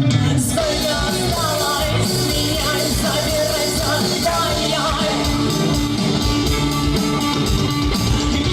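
A rock band playing live, with a singer's voice over guitar and drums.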